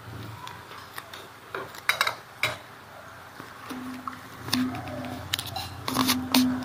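Chopsticks and metal utensils clinking against bowls, plates and a wok: a scatter of sharp, separate clicks, busiest about two seconds in and again near the end.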